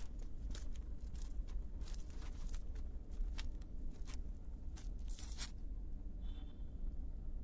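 Footsteps scuffing and crunching on a brick-paved path, irregular steps about every half second, over a steady low rumble of wind on the phone's microphone. A brief high chirp about six seconds in.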